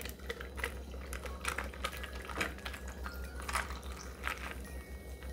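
Carbonated lemon soda poured from a can into a glass over ice, a steady pour with scattered fizzing and crackling.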